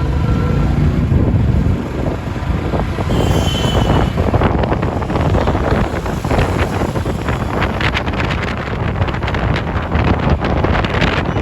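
Busy city street traffic: a continuous rumble of passing vehicle engines with rattling and clatter. A horn trails off at the very start, and a brief high-pitched tone sounds about three seconds in.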